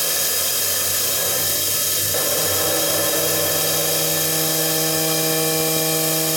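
Mazak VARIAXIS i-800T 5-axis machining center cutting an S45C steel workpiece: a steady spindle and cutting whine of several tones over a hiss of coolant. The pitch of the tones shifts about two seconds in.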